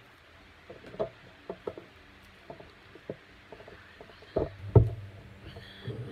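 Handling noise of a camera being moved: a string of soft knocks and bumps, with two heavier thumps about four and a half seconds in.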